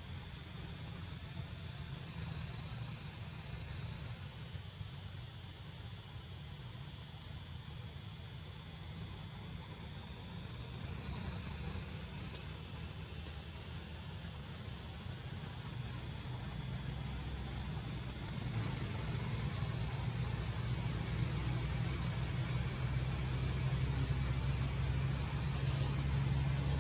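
Insect chorus: a steady, high buzzing that shifts slightly in pitch a few times, with a low steady rumble underneath.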